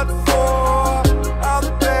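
Background music: a pop song with a steady beat, bass and drums.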